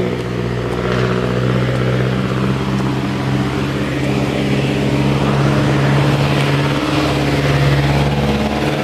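A motor vehicle's engine running loud and steady at an even pitch.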